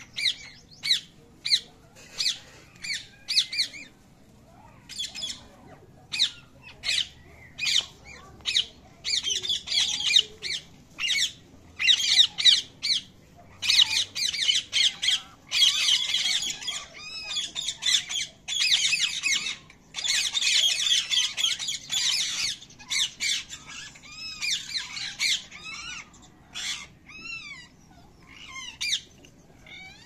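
Baby parrots (green parakeet chicks) calling with short, harsh squawks. The calls come one or two a second at first, crowd into a dense, overlapping stretch through the middle, then thin out again into separate rising-and-falling calls near the end.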